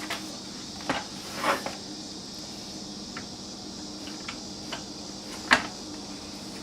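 Scattered light clicks and knocks of a screw being worked against a miter saw's base and the stand's metal mounting bracket while feeling for the bolt hole. The sharpest knock comes about five and a half seconds in. A steady low hum runs underneath.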